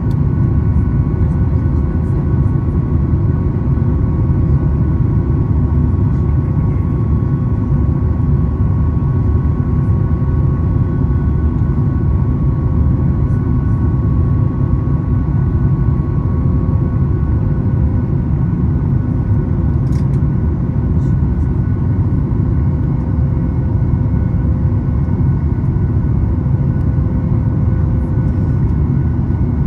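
Boeing 737 MAX 8's CFM LEAP-1B engines and airflow heard inside the cabin during the climb after takeoff: a steady, loud roar with a few faint steady tones in it. One of the tones fades out a little past halfway.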